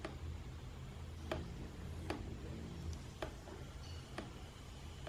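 Small metal clicks from the Canon Demi EE17's lens parts being handled and turned by hand, about five scattered sharp ticks over a faint low hum.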